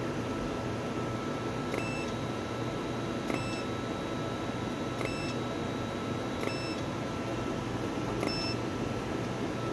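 Sciton BBL system giving five short, high beeps about one and a half seconds apart over the steady whir of its cooling fans, with a faint steady tone underneath.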